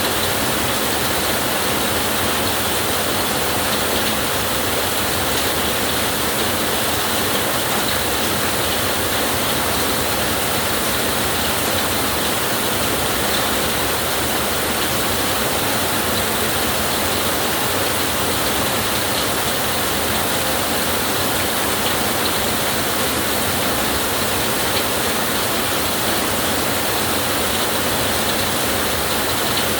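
Heavy rain falling steadily, an even hiss with no let-up and no thunder.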